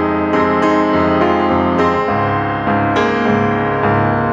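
Background piano music, chords struck at a steady, unhurried pace.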